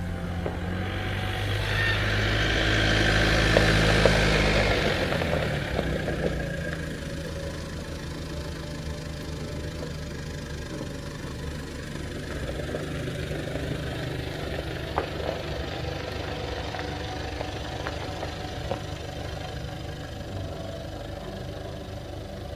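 An engine idling steadily with a low, even hum. A louder rushing noise swells in the first seconds, peaks about four seconds in and dies away by about six seconds.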